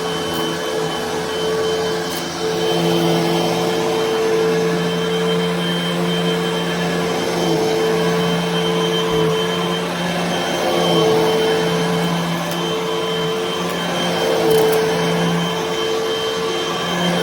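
Hoover vacuum cleaner running over carpet: a steady motor drone with a thin high whine, the tone dipping briefly every few seconds.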